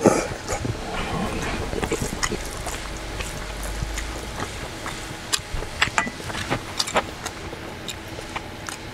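A person slurping noodles at the start, then chewing and eating, with sharp clicks of a wooden spoon and chopsticks against a stainless steel bowl scattered throughout.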